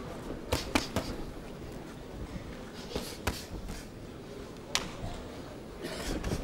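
Boxing-glove punches landing as sharp smacks: three in quick succession about half a second in, two more around three seconds, another near five seconds and a short cluster near the end, over steady arena crowd noise.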